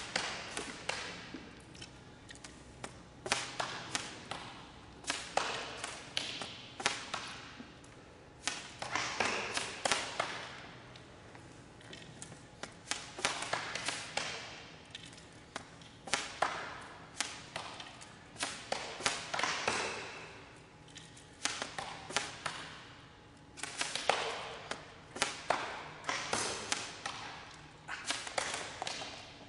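Sport blowguns fired rapidly by several shooters at once: sharp puffs of breath and darts striking targets, in irregular clusters of quick shots with short pauses between.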